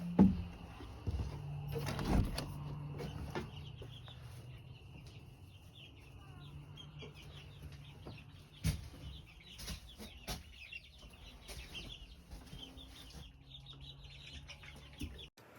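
Backyard chickens clucking, with a few sharp knocks, the loudest just after the start, and a low steady hum.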